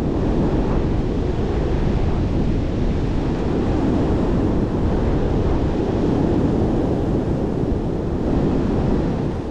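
Storm-force wind buffeting the microphone: a loud, steady rumbling rush, heaviest in the low end, easing slightly near the end.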